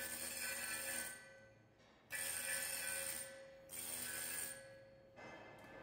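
Flux-cored arc welding on a vertical butt joint: the arc hisses in three bursts of about a second each, with a steady high whine, stopping and restarting between them as the welder runs the bead in short stretches.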